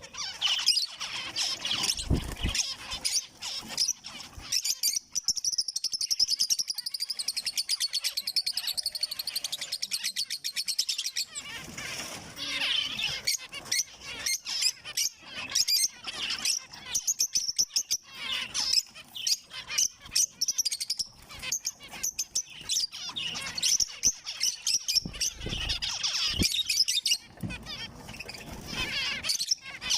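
Zebra finches calling and singing: a dense, busy stream of short, high chirps.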